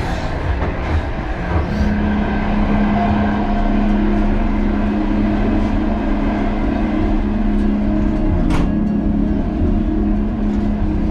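A vehicle running, heard from inside: a steady low rumble with a droning hum that shifts up in pitch early on and back down later, with a few faint clicks.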